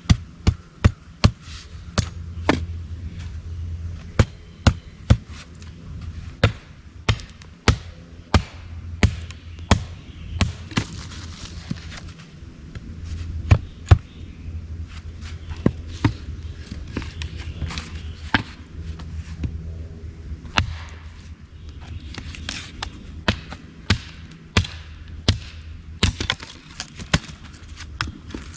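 Axe chopping and splitting small pieces of wood into kindling: dozens of sharp strikes on wood, about two a second with short pauses, over a steady low hum.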